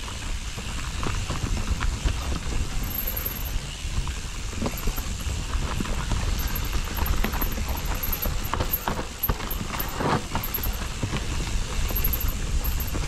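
Mountain bike riding down a dirt trail: tyres rolling over the ground with irregular knocks and rattles of the bike over bumps, over a steady low rumble.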